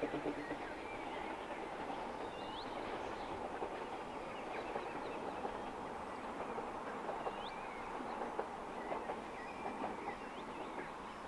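Baldwin-built narrow-gauge steam train running along the far side of a valley. Its rhythmic chuffing dies away within the first second, leaving a steady running noise, with small birds chirping now and then.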